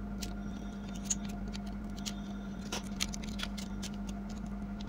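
Scattered light clicks and scratches of fingers and a small tool pressing a thin speaker wire into the routing channels of a laptop's plastic casing, over a steady low hum.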